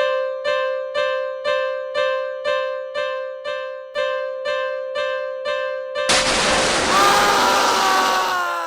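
Japanese railway level-crossing warning bell ringing its steady kan-kan, about two strikes a second. About six seconds in, a sudden loud splash and rushing water cover it, while the bell tone sags lower in pitch as the crossing goes into the river.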